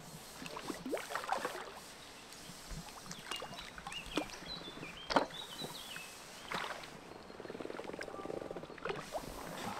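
A hooked carp splashing and thrashing at the surface as it is drawn over the landing net: irregular sharp splashes, the loudest about five seconds in, over sloshing water.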